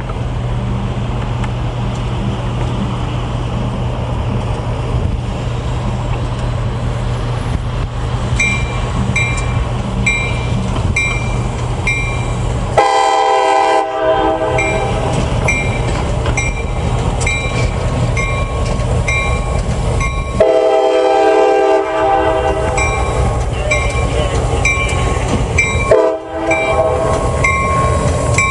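CSX diesel locomotive approaching and passing with its engine running. A bell rings about twice a second from about 8 s in. The locomotive horn sounds several notes at once: a short blast about 13 s in, then long blasts from about 20 s, broken briefly near 26 s.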